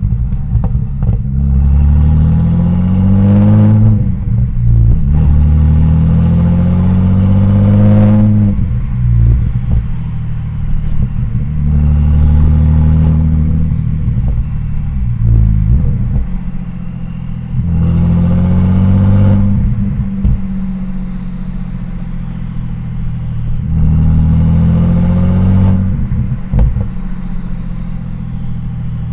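Twin-turbo Audi S4 B5 engine making four part-throttle pulls through the gears, its note rising with each. A turbo whistle climbs with the boost, then falls away each time the throttle is lifted, with a short turbo flutter after.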